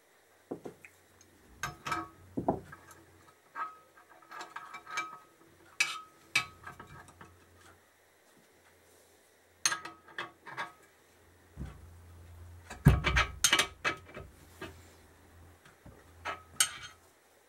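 Combination spanners clinking and turning on a blind bearing puller as its expanding collet is tightened inside a swingarm pivot bearing: irregular metal-on-metal clicks and taps with short pauses, busiest about two-thirds of the way through.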